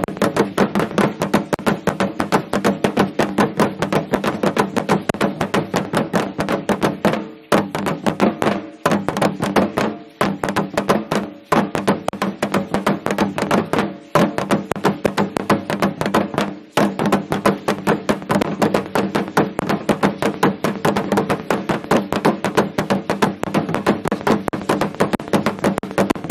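Fast, steady drumming for an Aztec (Mexica) dance, a dense run of sharp strokes over a low ringing resonance. The beat drops out briefly several times in the middle stretch and picks up again each time.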